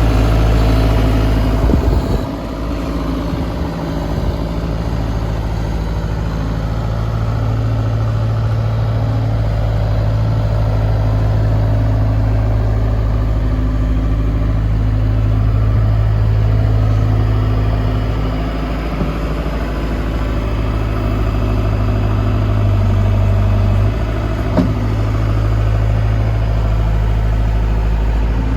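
A Bobcat S450 skid-steer loader's diesel engine running steadily at idle, its note shifting slightly a few times.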